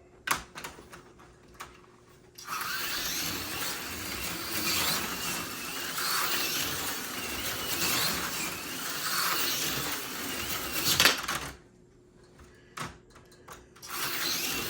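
AFX Super G-Plus HO-scale slot car running on the track: its tiny electric motor and gears buzz and whine, the pitch rising and falling with the throttle, for about nine seconds before stopping with a sharp clack. A few light clicks come before it starts and after it stops, and the buzz starts again near the end.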